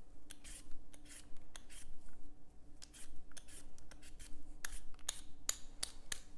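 Hand vegetable peeler scraping the skin off a russet potato: quick rasping strokes, two or three a second, with a short pause around the middle.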